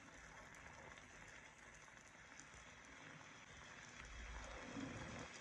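Faint, steady sizzling and bubbling of beaten eggs setting over sliced tomatoes in oil in a frying pan, with a brief low bump about four seconds in.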